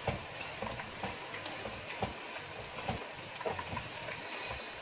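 Banana slices sizzling in hot oil in a deep pot while a metal spoon stirs them, knocking and scraping against the pot about twice a second.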